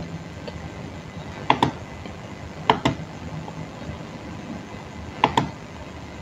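Computer mouse clicking three times, each click a quick press-and-release double tick, over steady background noise.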